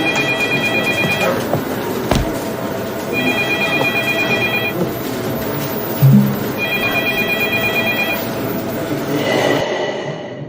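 Electronic trilling ring tone, about a second and a half long, repeating about every three and a half seconds over a busy background din. Nearly all of it cuts off suddenly near the end.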